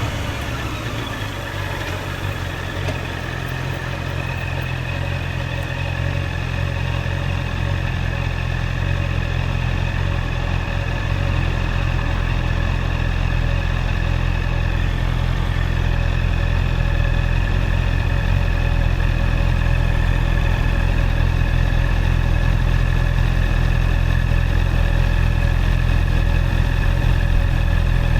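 Honda CB650R's inline-four engine idling steadily. It gets gradually a little louder over the stretch.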